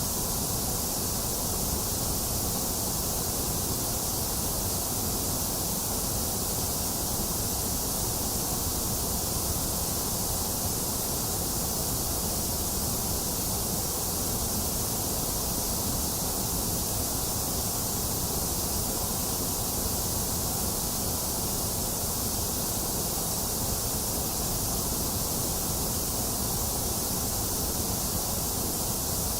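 Box fan running mixed with rain, heard together as one steady, even rushing noise with no thunder and no changes.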